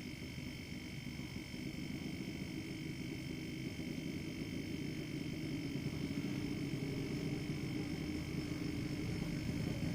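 Refrigerator compressor running on an LPG charge: a steady low hum with faint high whining tones above it, slowly growing louder.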